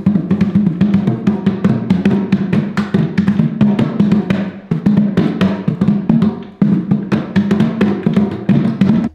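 Music led by fast hand drumming on bongos, with a steady low bass line under the strikes. The music dips briefly about four and a half and six and a half seconds in.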